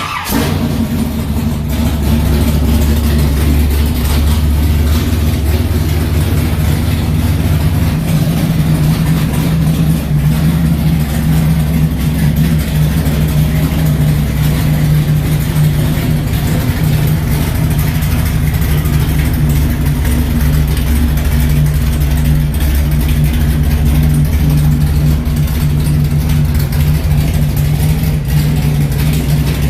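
Big-block 496-cubic-inch Chevy V8 in a 1974 Chevrolet C10 pickup running at a steady idle, with a deep, heavy-breathing rumble. The sound comes in suddenly at the start, and the deepest part of the rumble eases off about eight seconds in.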